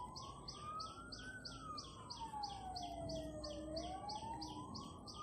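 Fire engine siren wailing faintly in one slow cycle: it rises, falls for about two seconds, then climbs again near the end.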